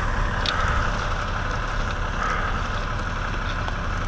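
Bucket truck engine running steadily at idle, a low even rumble, with a light click about half a second in.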